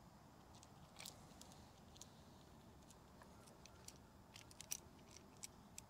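Near silence, with scattered faint clicks from handling the small metal and plastic parts of an airless sprayer's spray tip and its seal, more of them in the second half.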